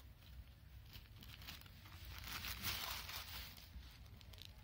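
Plastic packaging crinkling and rustling as it is handled, swelling into a louder rustle about two and a half seconds in.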